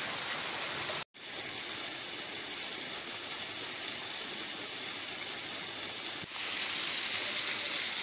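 Steady rush of water from a small waterfall running thin, with little water coming over. The sound cuts out for a moment about a second in.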